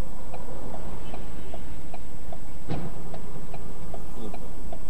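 Car's turn-signal relay clicking steadily, about two to three clicks a second, over a steady low engine and road rumble. A single knock comes a little past halfway.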